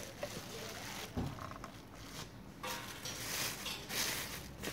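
Clear plastic bag crinkling and rustling as a COB downlight is handled and pulled out of it, with a dull knock about a second in.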